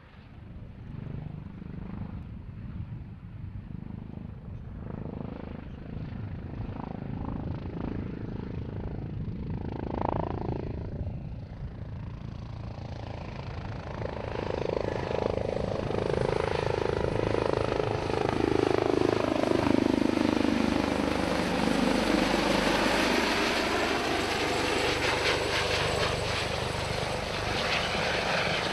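Airbus Helicopters H145M helicopter flying, its twin turboshaft engines and rotors running as a steady rumble with a turbine whine. It grows clearly louder about halfway through, and the whine dips in pitch and rises again as it comes closer.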